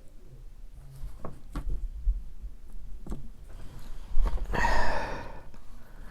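Handling noise from a plastic model kit and a marker: a few light clicks and taps, then a short rushing, rustling noise about four and a half seconds in.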